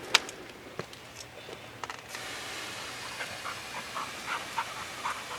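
A dog panting in quick, even breaths, about three a second. A steady hiss starts about two seconds in.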